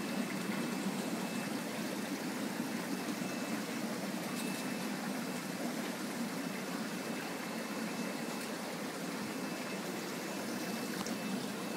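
Steady trickling, rushing water noise of aquarium filtration running in a room full of fish tanks, with a faint high steady whine over it.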